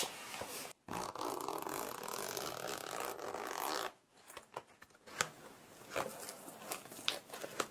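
Close-miked handling noise: a continuous scratchy, zipper-like rasp for about three seconds, then a scatter of small clicks and taps.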